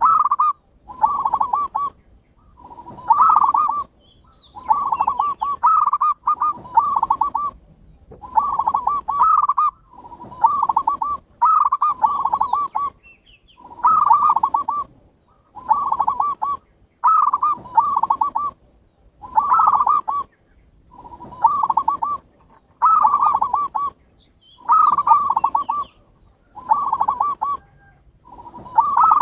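Zebra dove (perkutut) cooing: short, rolling, warbled coo phrases repeated about once a second in a steady run.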